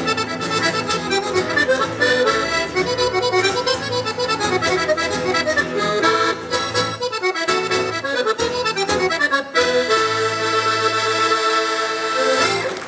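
Accordion playing a lively traditional tune. Near the end it settles on a long held chord.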